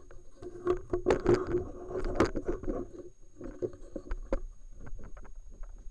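Irregular knocks, clicks and scraping of tools and objects being handled on a workbench.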